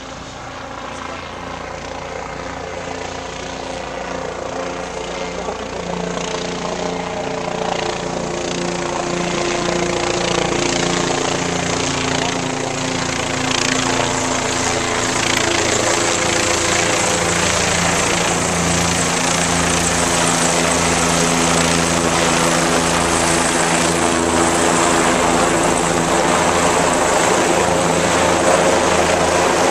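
Tampa Police Department helicopter flying overhead, its rotor and engine drone growing steadily louder over the first ten seconds or so and then holding steady, its pitch falling slightly along the way.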